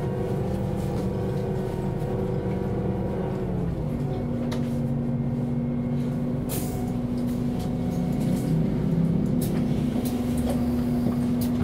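Solaris Urbino 18 articulated bus's diesel engine running, a steady hum that steps in pitch about four seconds in. A few short clicks and a brief hiss about six and a half seconds in.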